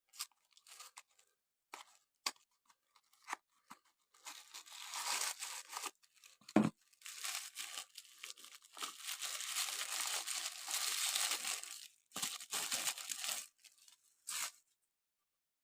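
A Matchbox die-cast car's cardboard box being torn open by hand: a few light clicks, then several seconds of tearing with a single knock partway through, a shorter burst of tearing after a pause, and a last short rip.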